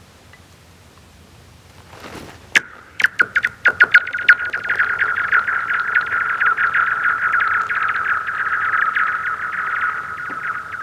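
A rock skipped onto thin, freshly frozen lake ice. It strikes about two and a half seconds in and bounces in a quickening run of sharp clicks. It then skitters across the ice for several seconds while the ice rings with a steady, strange tone full of rapid ticks, fading near the end.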